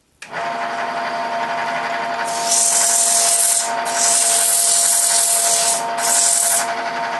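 Wood lathe switched on, its motor running with a steady whine, while cloth-backed sandpaper is pressed against the spinning turned wooden column. The sanding comes in several passes of loud hiss starting about two seconds in, with short gaps between them.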